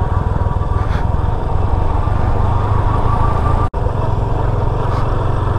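Motorcycle running while ridden downhill, a steady engine and road noise. The sound drops out for an instant about two-thirds of the way through.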